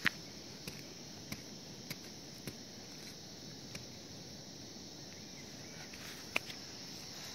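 Small short-handled hoe chopping into dry soil: short sharp knocks at an even pace of nearly two a second for the first few seconds, then a couple more, the loudest about six seconds in. A steady high insect chirring runs behind.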